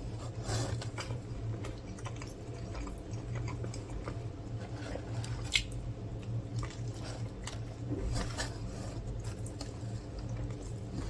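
A person chewing a mouthful of smash burger, with irregular soft wet mouth clicks and squishes and one sharper click about five and a half seconds in, over a steady low hum.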